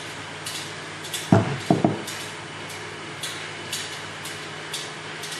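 Pellet mill with pin roller and milling comb running: a steady motor hum with sharp clicks about twice a second. About a second and a half in, three heavy knocks follow close together.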